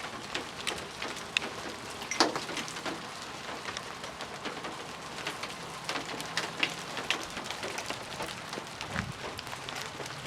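Chunks of melting ice dropping from ice-coated tree branches and hitting the ground in an irregular patter of sharp ticks, like hail, with a louder hit about two seconds in.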